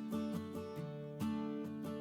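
Background music: acoustic guitar picking a steady pattern of plucked notes.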